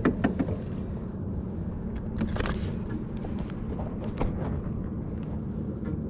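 Steady low hum of a boat motor, with a few scattered clicks and knocks.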